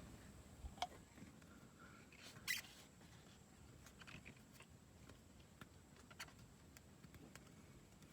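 Near silence, with a few faint, scattered clicks and light taps, the most distinct about a second in and again a little past two seconds.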